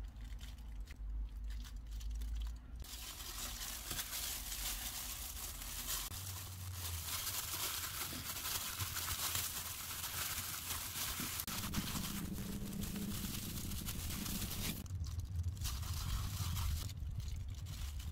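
Disposable plastic gloves crinkling and a bamboo mat rustling as gimbap is rolled by hand. The steady crinkling rustle starts about three seconds in and stops shortly before the end.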